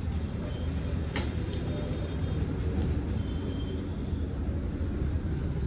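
Steady low rumble of background traffic, with one sharp click about a second in.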